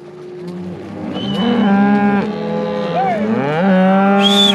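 Herd of cattle mooing, several long bellows overlapping one another, louder from about a second in.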